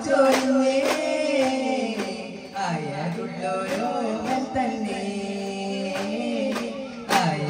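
Daff muttu: a singer holds a long, wavering, ornamented melody line of a devotional song, accompanied by daf frame drum strikes that are sparse through the middle and return in a quick run near the end.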